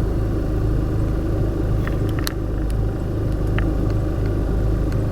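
Honda Civic Type R FK2's 2.0-litre turbocharged four-cylinder engine idling steadily, a low even hum with no revving. A few faint clicks sound over it.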